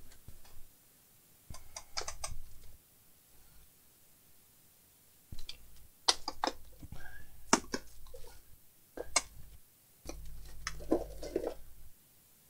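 Scattered clicks, knocks and light rustling of objects being handled and moved about while someone rummages for a charger, with short quiet gaps between.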